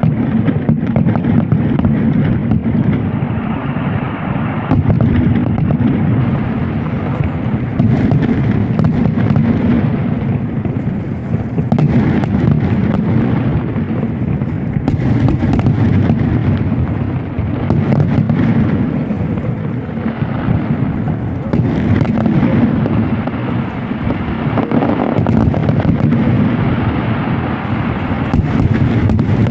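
Fireworks display: a continuous rumble of booming bursts with many sharp crackles and pops, going on without a break.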